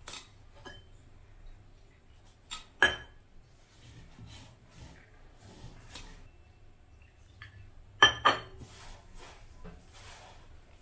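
Hand mixing wheat flour and water into a stiff dough in a bowl, with soft scraping and squishing and a few sharp, ringing clinks, the loudest about three seconds in and a quick pair about eight seconds in.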